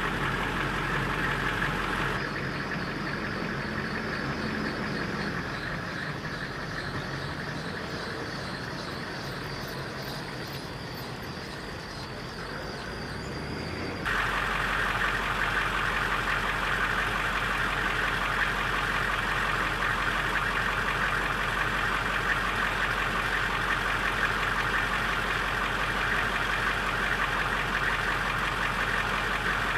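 Humvee's V8 diesel engine idling steadily. For a stretch in the middle, from about two seconds in until about fourteen, the sound is quieter while a Humvee drives slowly by, its engine note rising and then falling, before the steady idle returns.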